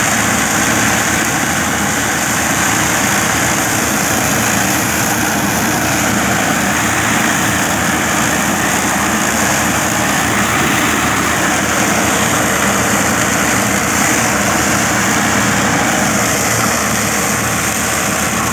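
Tractor engine driving a Farm Mate FM-72 rotary mulcher through dry straw stubble, the rotor shredding the straw; a loud, steady machine noise.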